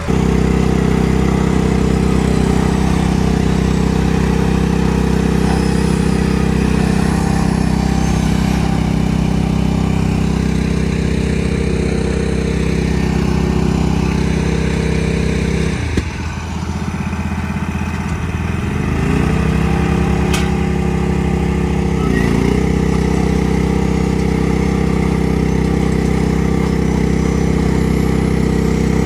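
Farm tractor engine running steadily. About two-thirds of the way through its speed drops suddenly, then rises back smoothly over a few seconds, with a brief dip shortly after.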